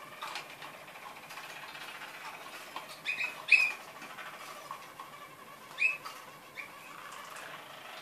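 Caged roller canaries singing softly in a steady stream, with a few short, louder chirps about three seconds in and again near six seconds.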